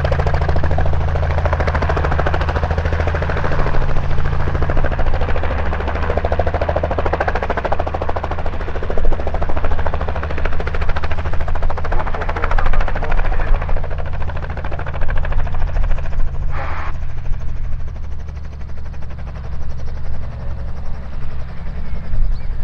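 Robinson R44 Raven II helicopter hovering close to the ground: the rapid, even chop of its two-bladed main rotor over the steady drone of its six-cylinder Lycoming piston engine. The level rises and falls a little as it manoeuvres.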